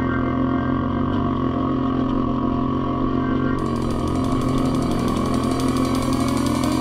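ATV engines running steadily, with one engine revving up about five seconds in.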